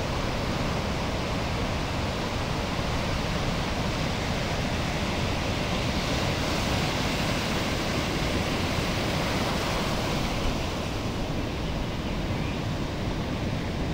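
Ocean surf: a steady rush of breaking waves and moving water.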